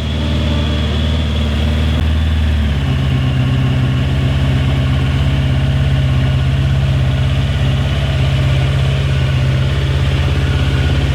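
Suzuki GSX-R SRAD motorcycle's inline-four engine idling steadily as it warms up, its note shifting once about three seconds in and then holding even.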